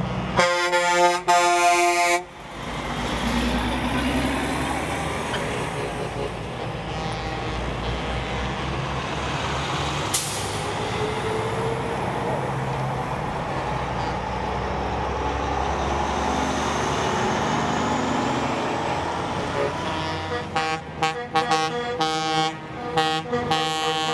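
Semi-truck air horn blasting twice in quick succession about a second in, then the steady engine and tyre noise of big rigs rolling past. Near the end comes a string of short air horn toots.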